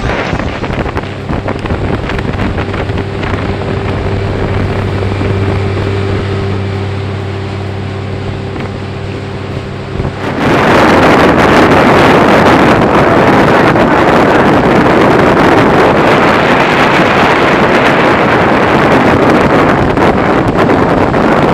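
Outboard motor running at speed on an inflatable boat, a steady drone. About ten seconds in, loud wind on the microphone and rushing water suddenly drown it out.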